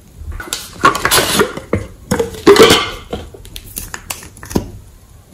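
Small hard makeup items being handled: a burst of clattering and clicking, then a few single sharp clicks near the end as a lipstick tube is taken up and opened.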